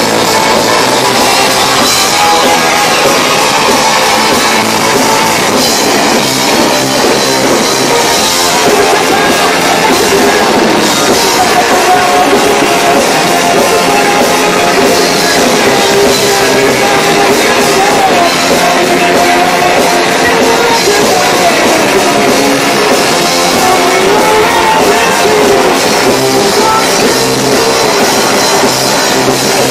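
Live rock band playing loud, with electric guitar, drum kit and vocals. The camcorder's built-in microphone is overloaded by the volume, so the sound is heavily distorted.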